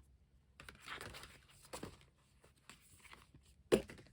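Paper and plastic packaging crinkling and rustling as album inclusions and photocards are handled, with small ticks and one sharper, louder handling noise near the end.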